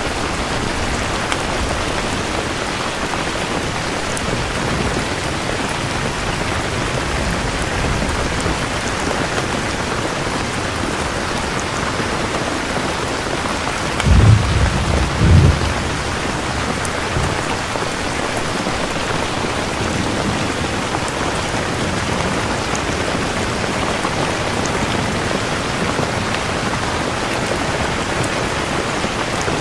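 Steady rain falling. About halfway through comes a short low rumble of thunder in two close booms.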